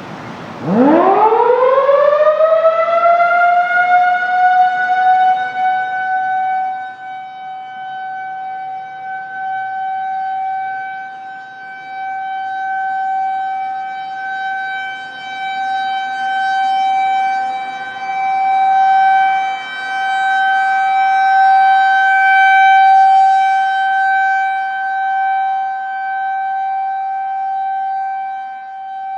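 Federal Signal 2001-130 rotating outdoor warning siren sounding a full alert, a steady tone. It winds up from a low growl to full pitch over the first few seconds, then holds that one pitch while its loudness swells and fades as it rotates. Its tone is a bit on the high-pitched side for a 2001-130.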